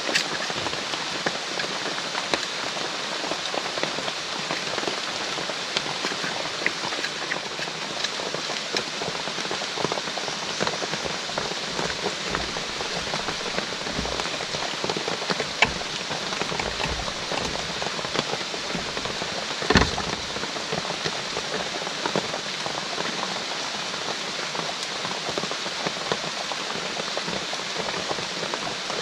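Steady heavy rain falling, a dense patter of drops, with one louder sharp tap about twenty seconds in.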